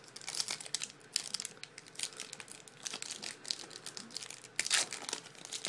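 Foil wrapper of a Topps Chrome baseball card pack being torn open and crinkled by hand: a quick, irregular crackle that gets louder near the end.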